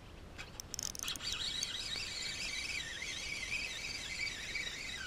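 Ultralight spinning reel being cranked on a retrieve, its gears giving a steady whirring whine that wavers in pitch with each turn of the handle. A few sharp clicks come just before the whine starts, about a second in.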